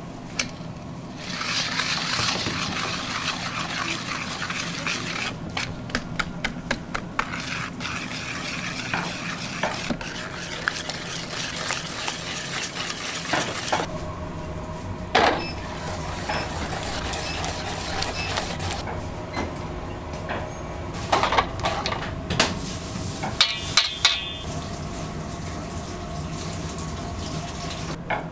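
Eggs and sugar being stirred by hand in a stainless steel bowl, the utensil clicking rapidly against the metal, then the mixture scraped and poured into a second steel bowl. Several sharp metal clanks of bowls and utensils follow near the end, one ringing briefly, over a steady machine hum.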